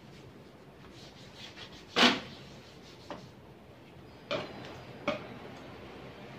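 Sharp knocks and clunks at a laser printer being put back together. The loudest knock comes about two seconds in, a faint one a second later, and two more in the last two seconds.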